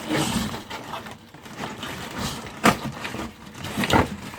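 Packaging being handled and pulled apart: rustling and crinkling, with two sharp cracks, the second near the end.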